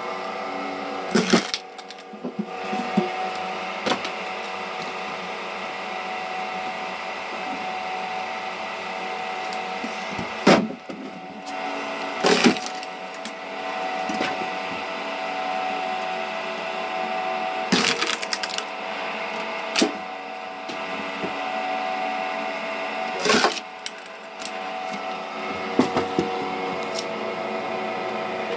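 Homemade rotary log splitter: its motor-driven shaft runs with a steady hum while an axe-like blade on the shaft strikes a log held against it. Sharp cracks of wood splitting and splintering off come about six times at irregular intervals.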